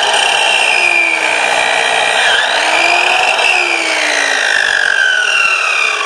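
Sliding compound miter saw running and cutting through 2x4 lumber, a loud motor whine whose pitch dips under load about two seconds in, then falls steadily near the end as the blade spins down.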